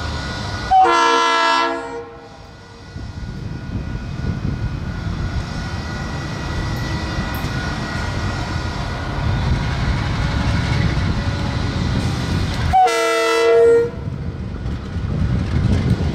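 A KiwiRail DXC-class diesel-electric locomotive sounds its horn twice, each blast about a second long, about a second in and again near the end, over the steady running of the locomotives' diesel engines as the freight train approaches.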